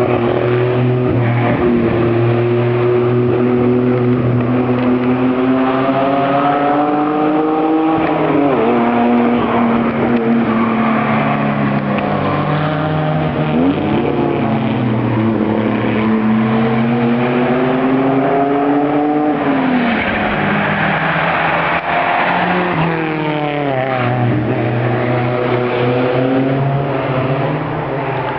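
Alpine-Renault A110 hillclimb car's engine pulling hard as it climbs away up the course. Its pitch rises through each gear and drops at each shift, several times over, fading slightly near the end.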